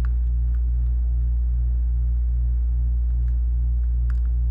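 Steady low electrical hum with a faint, regular pulsing, loud throughout, and a few faint clicks from work on the bench.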